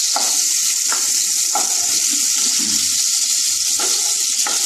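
Small prawns frying in hot vegetable oil in a non-stick kadai, a steady sizzle, with a wooden spatula scraping and tapping the pan several times as the fried prawns are lifted out.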